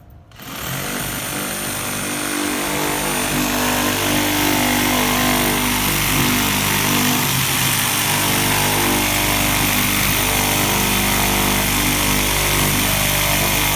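Power saw starting up about half a second in and running steadily as it cuts slowly through thick wood framing.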